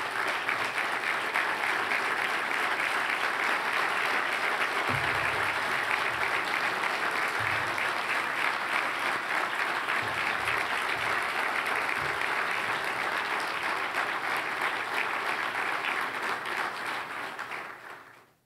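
Large audience applauding steadily; the applause fades out near the end.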